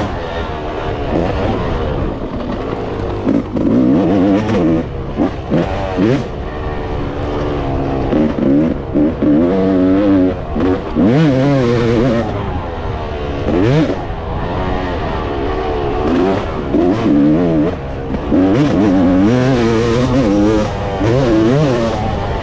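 Yamaha YZ motocross bike's engine revving up and down over and over as the throttle is opened and closed around the track, its pitch climbing sharply and dropping many times.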